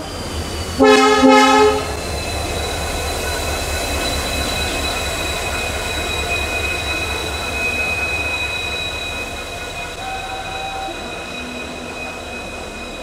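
Indian Railways WDG4D diesel locomotive sounding a short two-part horn blast about a second in. This is followed by a steady high-pitched wheel squeal from slowly rolling covered goods wagons during shunting, over a low engine rumble.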